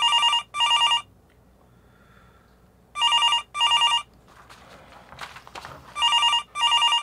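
Incoming-call telephone ringtone ringing in a double-ring pattern: three pairs of short trilling rings about three seconds apart. Faint scuffing noise comes between the second and third pair.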